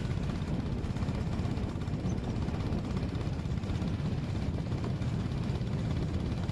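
Honda H'ness CB350's air-cooled single-cylinder engine running steadily while the motorcycle is ridden, with wind and road noise.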